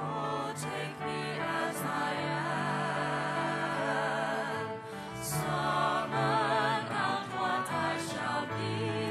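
Music with a singing voice holding long notes with vibrato over sustained low accompaniment. It dips briefly about five seconds in, then swells again.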